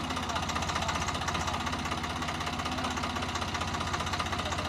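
Swaraj 744 FE tractor's three-cylinder diesel engine running steadily at low revs, with an even knocking pulse.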